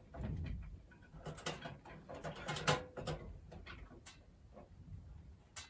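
Scattered light clicks, knocks and scrapes of a motherboard being pushed into a PC case against its rear I/O shield. The ports will not line up because the I/O shield is fitted upside down.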